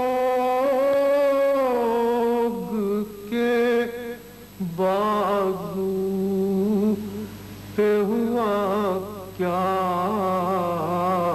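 A man's voice chanting an Urdu noha, a Shia mourning elegy. He holds long, wavering notes in phrases, with brief pauses between them.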